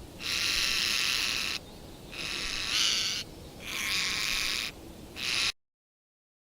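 High-pitched animal calls in four bursts of about a second each with short gaps between, cutting off suddenly near the end.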